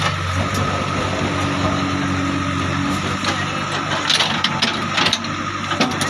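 JCB 3DX backhoe loader's diesel engine running steadily under digging load, with a steady hydraulic whine. Sharp knocks and clatters come over the last three seconds.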